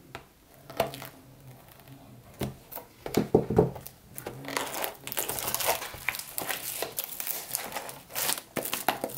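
Plastic shrink wrap being torn and peeled off a sealed trading card box, crinkling and crackling. There is a louder rustle about three seconds in, and the crinkling grows denser through the second half.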